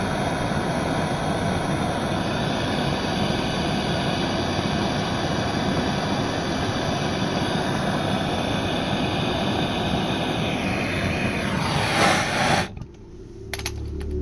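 Gas torch flame burning steadily while heating a copper pipe joint for soldering. It cuts off abruptly near the end, followed by a few sharp clicks.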